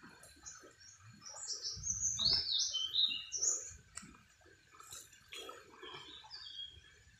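A songbird singing runs of quick, high notes that step downward, in two bursts, with some low thuds underneath.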